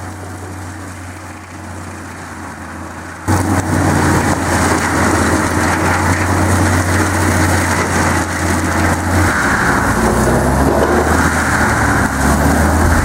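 Stump grinder's engine running with a steady hum. About three seconds in, it turns suddenly much louder with a harsh grinding noise as the cutter works. The engine note shifts around nine seconds in.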